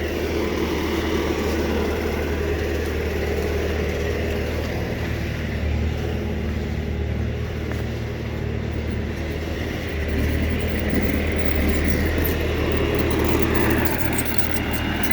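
An engine running steadily, a little louder from about ten seconds in.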